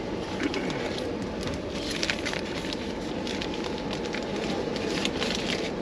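Aluminium foil crinkling as foil-wrapped rotis are unwrapped, over the steady low rumble of a moving train carriage.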